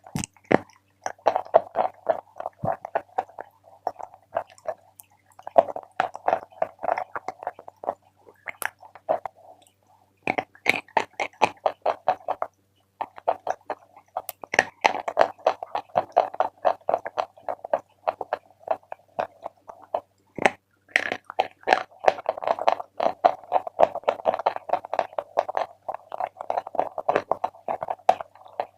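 Chalk being bitten and chewed close to the microphone: dense, crisp crunching in runs of several seconds, broken by a few short pauses.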